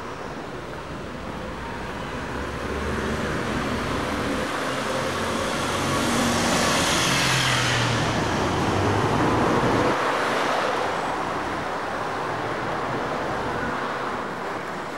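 Road traffic on a city street. One vehicle passes close, its engine and tyre noise swelling to the loudest point in the middle and dropping off about ten seconds in.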